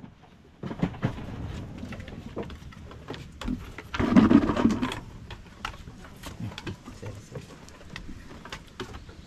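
Goat hooves tapping and shuffling on a slatted wooden pen floor as a kid moves under its mother to suckle, a run of quick irregular knocks. A louder noise lasting about a second comes about four seconds in.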